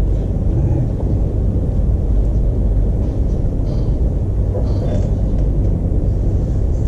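Steady low background rumble, with a few faint brief scratchy sounds about halfway through.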